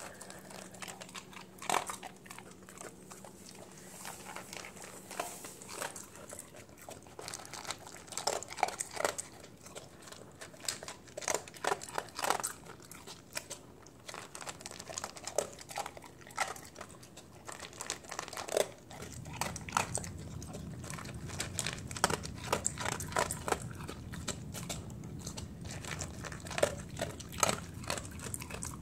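A dog eating dry kibble from a stainless steel bowl: irregular crunches as it chews, and clicks of kibble knocking against the metal bowl. A low steady hum comes in about two-thirds of the way through.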